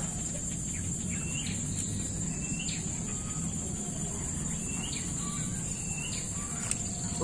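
A steady high-pitched insect drone from tropical insects, with a bird repeatedly giving short rising calls about every second, over a low steady background hum.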